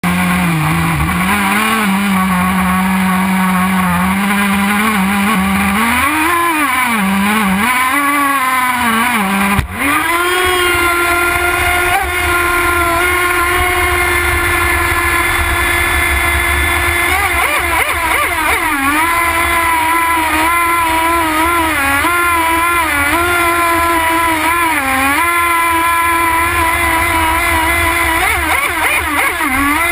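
Nitro RC boat's two-stroke glow engine running close up, its pitch wavering up and down a few times. About ten seconds in there is a sharp knock, after which the engine holds a higher, steady pitch with small wobbles as the boat runs across the water.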